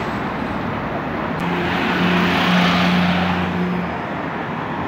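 A vehicle engine running at a steady pitch, its sound swelling louder from about a second and a half in and easing off near the end.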